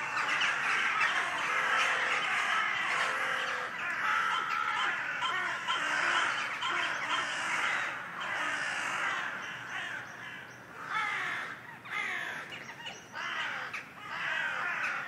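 Many birds calling and chattering at once in a dense chorus of short, overlapping calls, which thins to more separate calls in the second half.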